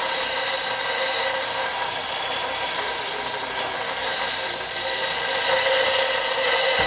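Harbor Freight 4x36 bench belt sander running with a steel bar pressed against its sanding belt, grinding off burrs. A steady rasping hiss sits over the motor's even whine.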